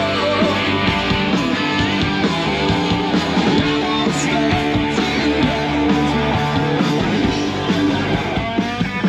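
Live rock band playing amplified on an outdoor stage: electric guitars strumming over drums and bass, steady and loud.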